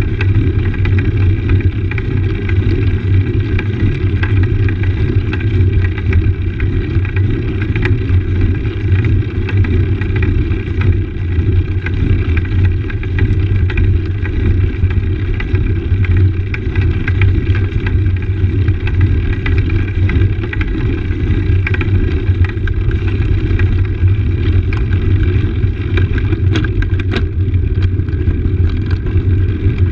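Road bike rolling over stone paving slabs, heard through a handlebar-mounted camera: a loud, steady rumble of tyre and frame vibration, with a few sharp knocks near the end.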